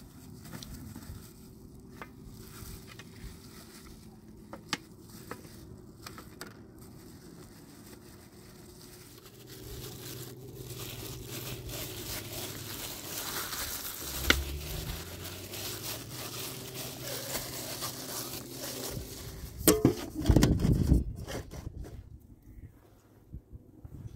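Plastic-gloved hands rubbing spice marinade into a raw whole chicken on a metal tray: soft wet squelching and crinkling of the gloves, thicker in the second half. Near the end come a few loud knocks, as an aluminium bowl is set upside down over the chicken on the tray.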